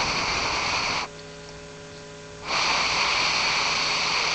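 Loud hissing noise in two spells: about a second of it at the start, then a longer stretch from about two and a half seconds in. A faint steady hum runs underneath.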